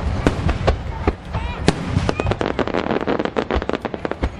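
A dense barrage of large aerial firework shells (shakudama) launching and bursting: overlapping sharp bangs and crackles several times a second over a continuous low rumble of booms.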